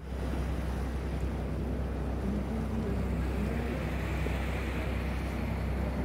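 Wind rumbling steadily on the microphone aboard a wooden gulet under way, over the rush of its bow wake and water running along the hull.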